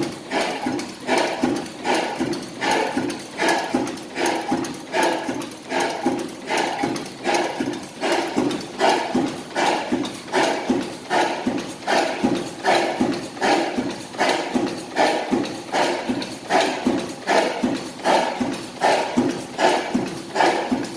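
1929 Robey horizontal oil engine running steadily, with an even, repeating knocking beat.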